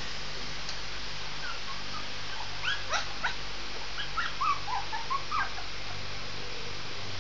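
Shih tzu puppy giving a string of short, high-pitched yips and whimpers, some rising and some falling in pitch, over a steady low hum.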